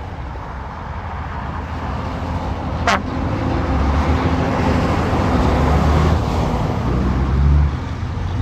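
Highway traffic passing, with the diesel engines of a dump truck and a semi pulling an end-dump trailer running as they go by, growing louder toward the end. A brief sharp chirp cuts through about three seconds in.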